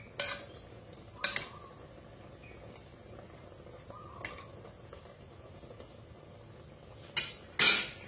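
A metal spoon scraping and knocking inside a clay pot as garlic is stirred, a few sharp scrapes early on and one around four seconds in. Near the end come two loud bursts as the fish go into the hot pot. Faint chirping calls sound in the background.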